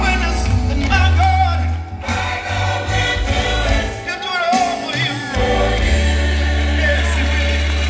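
Gospel music with a choir singing over long held bass notes.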